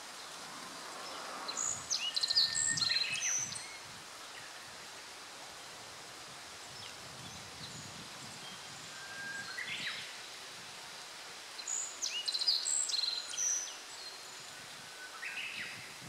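A songbird sings short phrases of quick, varied high notes over a steady outdoor background hiss. The two loudest phrases come about two and about twelve seconds in, with softer ones near ten seconds and near the end. The uploader, who could not see the bird, takes the song for a black-faced bunting.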